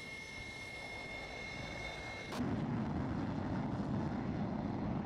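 Fighter jet engines at an airfield: first a steady, high turbine whine, then an abrupt switch about two seconds in to a louder, low jet roar as a twin-engine Sukhoi fighter takes off.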